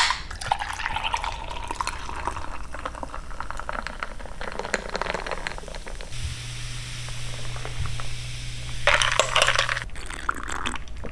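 Drink can cracked open with a sharp click, then fizzy drink poured into a glass over ice, the pour's note rising in pitch as the glass fills, with fizzing crackle. A louder, noisier patch comes near the end.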